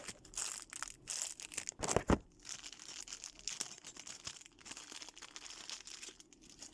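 Plastic and cardboard packaging rustling and crinkling as it is handled and pulled open, with a few louder knocks about two seconds in.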